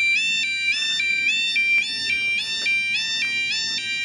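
Railway level crossing warning alarm sounding: an electronic two-tone yodel stepping quickly back and forth between a higher and a lower pitch, over faint outdoor background noise.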